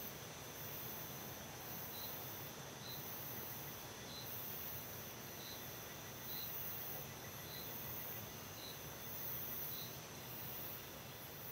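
Faint chorus of insects calling: a steady high trill with a high buzz pulsing about once a second over it, and a short chirp repeating about every second from about two seconds in.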